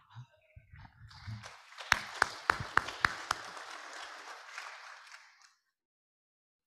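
A room of people applauding, with six loud, sharp claps from one person about three a second standing out over the rest. The applause dies away after about five seconds.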